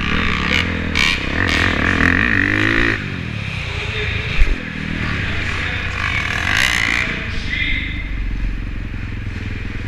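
Small dirt bike engine revving up and down under the rider, heard close up from a helmet camera; the revs climb, then ease off about three seconds in. A single thump about four and a half seconds in.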